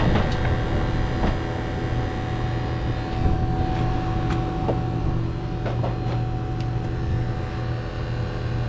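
Refrigeration vacuum pump running steadily, evacuating a heat pump's refrigerant line set, a constant low hum with a few faint ticks.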